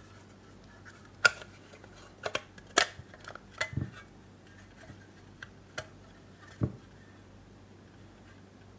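Small metal parts clicking and clinking, a few sharp clinks and two duller knocks: an old Esbit folding pocket stove of sheet metal being handled.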